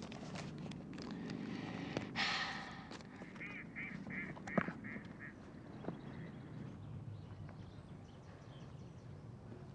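A duck quacking: a quick run of about six short calls about halfway through. Light scratching and rustling of paper and small clicks are heard around it.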